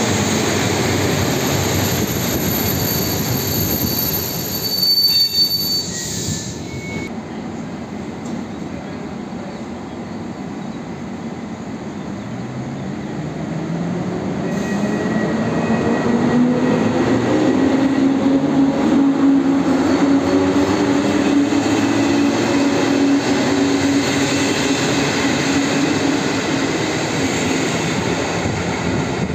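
EP07 electric locomotive and its intercity coaches rolling into a station, with high brake and wheel squeal for the first several seconds. After a quieter stretch the locomotive pulls away, and its traction motors give a rising whine as the coaches rumble past.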